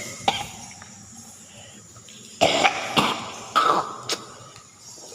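A man coughing hard: one sharp cough just after the start, then a fit of about five harsh coughs in a row from about two and a half seconds in. It is a choking, can't-take-it cough, which the video blames on the air around roosting bats.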